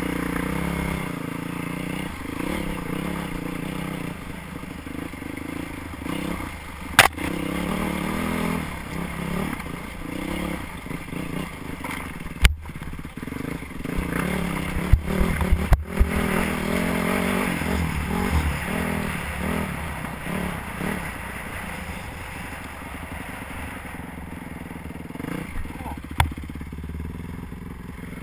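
Yamaha WR450F dirt bike's single-cylinder four-stroke engine running under load, revving up and down as the bike is ridden over rough trail. A few sharp knocks and clatter come from the bike jolting over rocky ground, the loudest a little after halfway.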